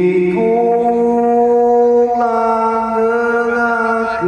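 Male singer, amplified through a stage PA, holding long sustained notes with no break for words; the pitch steps to a new note about two seconds in.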